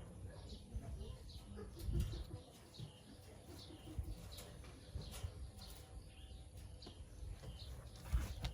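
Short high-pitched chirps, each sliding down in pitch, repeated about once or twice a second, with a few dull low knocks, the loudest near the end.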